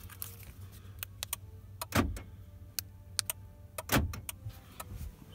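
Power door lock actuators of a 2002 Toyota Camry clunking twice, about two seconds apart, as the newly installed aftermarket keyless entry fob locks and unlocks the doors. There are light clicks in between.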